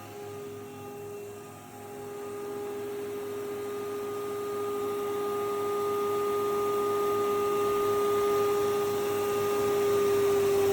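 STU 630 thicknesser running without a board in it, its four-knife cutterhead and 7.5 kW motor giving a steady whining hum. The hum grows louder, and its pitch sags slightly near the end.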